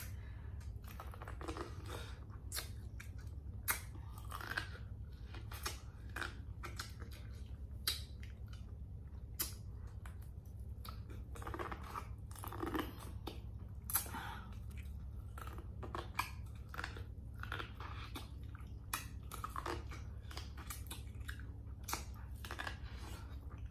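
Close-miked biting and chewing of boiled corn on the cob, with many short, crisp, irregular clicks and wet mouth sounds.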